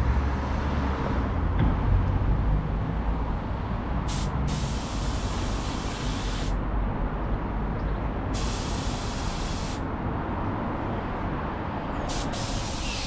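Automotive paint spray gun hissing in three passes of a second or two each, the first about four seconds in, as a second coat of clear lacquer goes onto the car's wing. A steady low rumble runs underneath.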